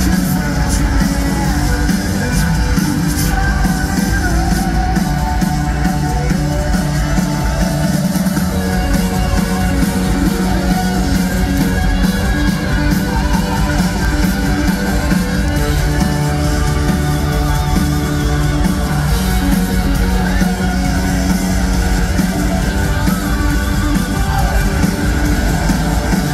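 Live rock band playing at full volume, with electric guitars, bass and drums and some singing, heard through an arena's sound system from high in the stands.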